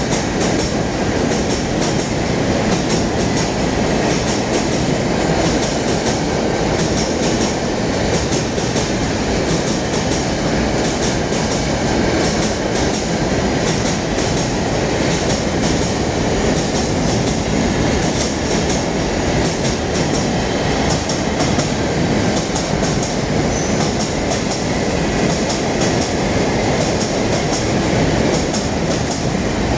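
Long train of mineral hopper wagons rolling past at speed: a steady rumble of steel wheels on rail with a clickety-clack over the rail joints.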